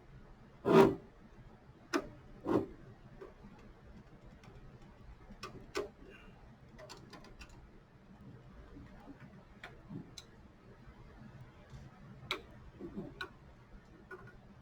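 Irregular clicks and knocks of a metal air-duct bracket, screws and a screwdriver being handled while the bracket is fitted to the side of a rack switch. The loudest knock comes about a second in, with a handful of lighter clicks after it.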